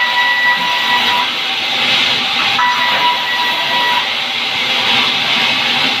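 Band sawmill running, its band-saw blade sawing through a pine log with a loud, steady noise. A thin high whine rises over it twice, for about the first second and again from about two and a half to four seconds in.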